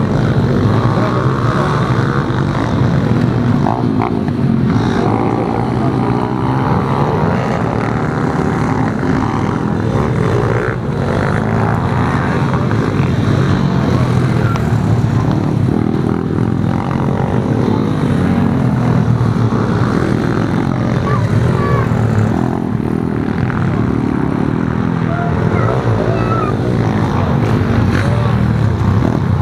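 Several pit bikes racing, their small single-cylinder engines revving up and down as they go round the track.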